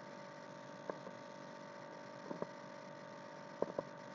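Steady electrical hum in the recording, with a few faint short clicks about a second in, near the middle and twice close together near the end.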